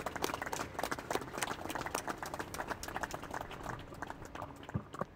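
Audience applauding: a dense patter of many hand claps, slowly fading.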